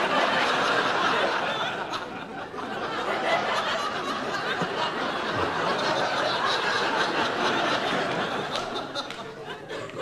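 Studio audience laughing, breaking out suddenly and going on, easing off near the end.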